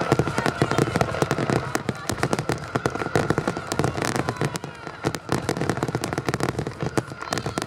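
Fireworks display in a dense barrage: a rapid, unbroken run of shell bursts and crackling, many bangs overlapping each other.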